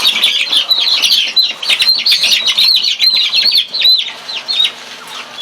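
Many birds chirping in rapid, high, short notes that overlap densely, thinning out and stopping about four and a half seconds in.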